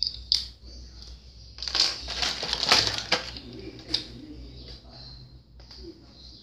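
Coloured markers and a paper sheet being handled: a sharp click near the start, a burst of clattering and rustling from about one and a half to three seconds in, then a few more single clicks.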